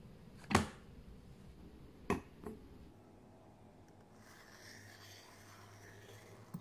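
Three sharp knocks in the first two and a half seconds, the first the loudest, then a faint, steady scratching of a pen tip drawn across paper as it traces around the rim of an upturned stainless steel bowl.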